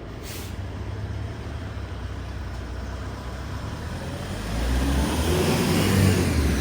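Road traffic with a short hiss near the start. About four and a half seconds in, a heavy vehicle's engine rumble gets louder as it passes or pulls away.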